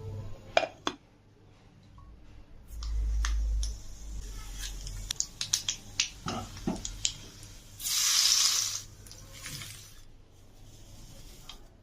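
Kitchen utensils clicking and tapping in quick, irregular strikes, with a low rumble lasting about a second near the start and a short hiss of about a second past the middle.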